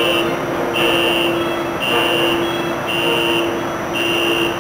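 Reversing alarm of demolition machinery beeping about once a second, each beep about half a second long, over a steady hum of machinery.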